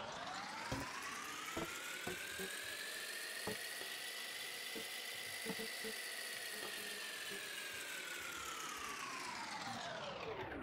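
Whirring sound effect, fairly quiet, whose pitch glides slowly up for about five seconds and then back down, with faint scattered clicks.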